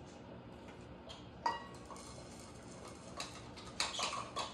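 Sparse light clicks and taps from red plastic measuring cups and a jar being handled, with a small cluster of ticks near the end as clumpy coconut sugar is tipped from the jar into a plastic measuring cup.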